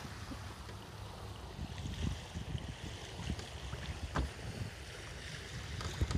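Water rushing and lapping along a sailboat's hull under sail, with gusty wind buffeting the microphone.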